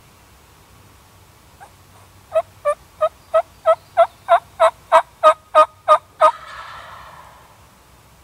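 Wild turkey yelping: a run of about thirteen evenly spaced yelps, about three a second, growing louder, followed by a fainter rough sound lasting about a second.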